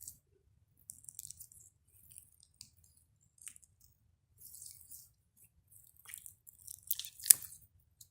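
Slime that has gone viscous being squeezed and pulled in the hands, giving scattered sticky squishing and crackling noises, busier near the end, with one sharp click about seven seconds in.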